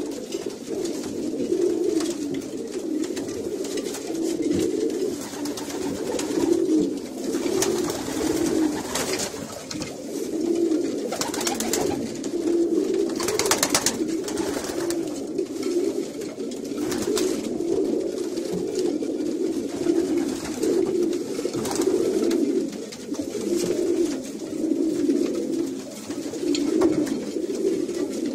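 A loft full of domestic pigeons cooing continuously, many calls overlapping, with cocks courting hens at pairing time. A few short rustling sounds come around the middle.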